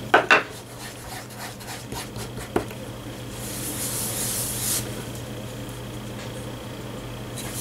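Fingers rubbing damp transfer paper off a painted coaster, rubbing away the leftover paper backing of a reverse image transfer. There are a couple of short scrapes at the start, a light tap a couple of seconds in, and a hissy scrubbing that lasts about a second and a half midway.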